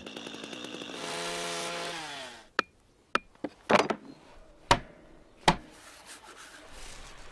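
Stihl chainsaw running at high speed, then winding down as the throttle is released a little after two seconds in. Then a handful of sharp single knocks, spaced irregularly over the next three seconds.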